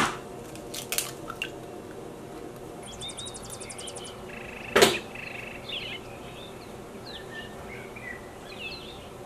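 An egg cracked against the rim of a plastic bowl: one sharp knock a little before five seconds in, with a few lighter clicks near the start. Birds chirp faintly in the background throughout.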